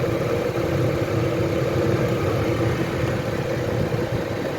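An engine running steadily at an even idle-like pace, with no change in speed.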